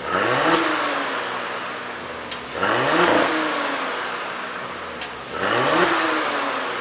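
Porsche Cayenne 3.0-litre turbocharged V6 revved in three quick blips, each rising in pitch and falling back towards idle, through an exhaust with its flaps held fully open. A sharp pop or two is heard as the revs drop, from the tuned overrun pops.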